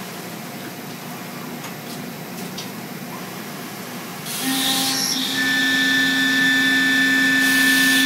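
Small ball-nose end mill on a Willemin Macodel W408B 5-axis mill cutting stainless steel, with the flood coolant spray hissing. About four seconds in the cut grows louder and takes on a steady high-pitched whine that holds.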